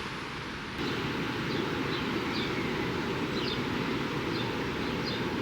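Outdoor ambience: a steady hiss with short, high chirps repeating every half second to a second, starting about a second in.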